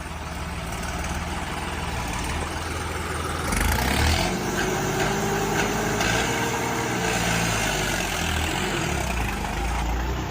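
Tractor diesel engine running, getting louder about three and a half seconds in as it is revved or put under load, its note rising and falling after that.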